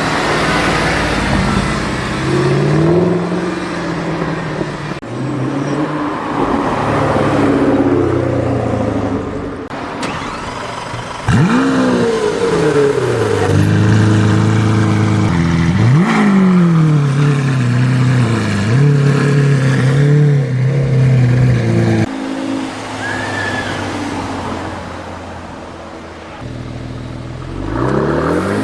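High-performance supercar engines revving and accelerating, with sharp rev blips that climb and fall quickly in pitch a few times and steadier engine notes between them, in several short cut-together clips.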